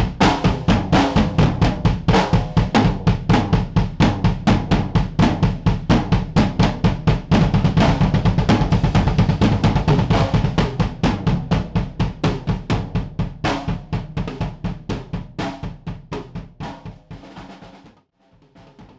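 Drum-driven background music with a fast, steady beat, fading out near the end.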